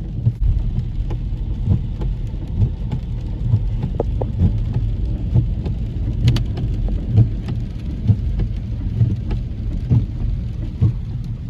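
Car cabin noise while driving: a steady low road-and-engine rumble, with a soft low thump repeating about once a second.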